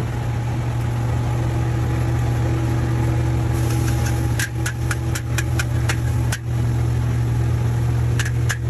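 Commercial gas wok burner running steadily under a carbon-steel wok, with frying sizzle. From about halfway a metal ladle clicks and scrapes against the wok in a quick run of strikes.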